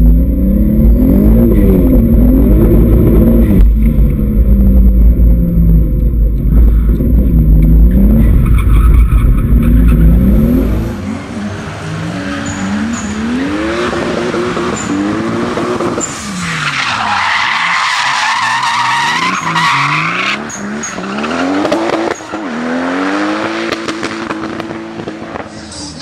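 Toyota 2JZ inline-six in a Nissan 200SX revving up and down over and over while drifting, with a heavy low rumble for the first ten seconds or so inside the cabin. Then, heard from trackside, the engine keeps rising and falling, and the tyres squeal for about four seconds past the middle.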